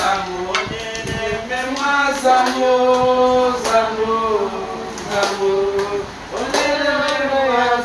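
People singing a hymn together in slow, held notes, with a few light taps.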